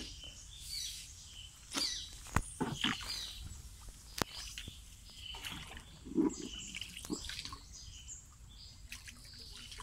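Hand paddle dipping and splashing in canal water from a small wooden boat being rowed, with a few sharp knocks and birds chirping in the background.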